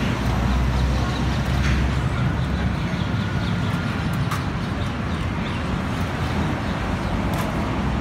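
Steady low background rumble with a few sharp metal clinks of a wire noodle strainer and tongs against a stainless-steel broth pot.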